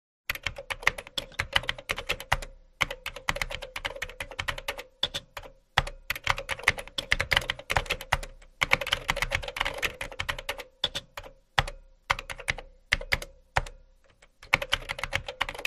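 Typing sound effect: rapid key clicks in quick runs, broken by short pauses, as the text types out.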